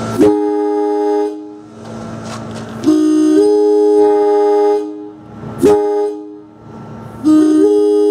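Multi-chime locomotive air horn blown in three long blasts, each a steady chord of several notes, with the upper note settling in a moment after each blast starts. A sharp pop comes between the second and third blasts.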